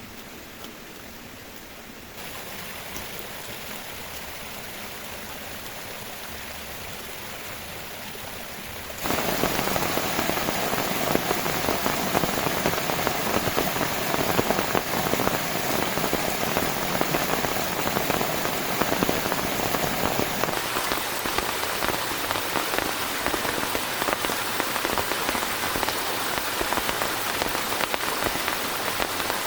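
Heavy rain pouring down and pattering on surfaces, getting louder in steps about two seconds in and again, sharply, about nine seconds in.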